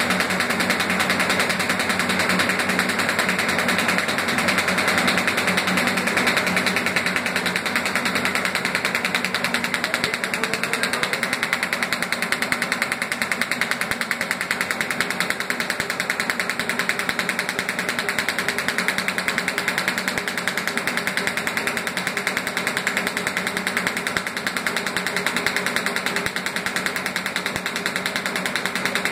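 Automatic paper bag making machines and roll-fed paper printing machines running together: a steady, fast mechanical clatter at an even level.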